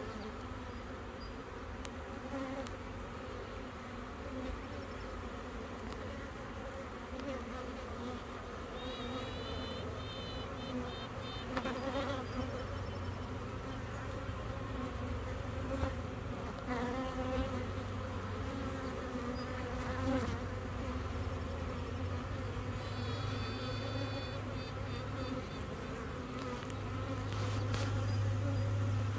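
Honeybee colony humming steadily while the queen pipes twice, near nine seconds and again near twenty-three seconds. Each time it is one longer high note followed by a quick run of short toots.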